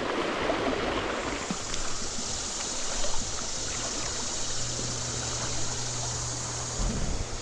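Trout stream running steadily, an even rush of flowing water, with a brief low bump near the end.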